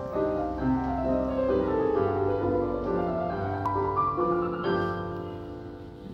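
Background piano music: a gentle melody of held notes, with a run of notes stepping downward in the first two seconds, growing softer near the end.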